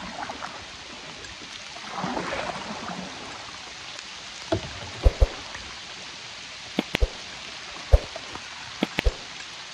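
Rain hissing steadily, with a swish about two seconds in and a scatter of short, sharp knocks through the second half.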